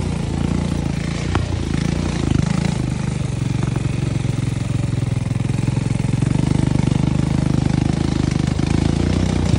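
ATV engine running at a steady low speed, with a fast even firing pulse. It gets a little louder about two seconds in.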